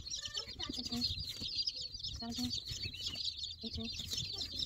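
A brood of baby chicks peeping continuously: a dense chorus of short, high peeps, with a few brief lower calls now and then.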